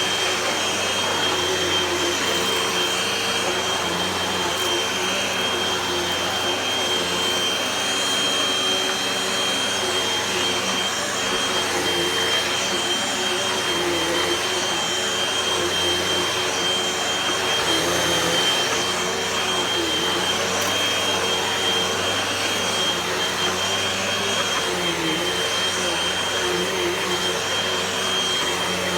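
Hoover Rewind upright vacuum cleaner running steadily on its hard-floor height setting: a continuous rush of air with a steady high whine from the motor.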